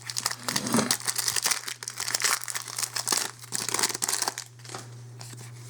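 Foil booster pack wrapper being torn open and crinkled by hand, a dense run of crackles that dies away about four and a half seconds in.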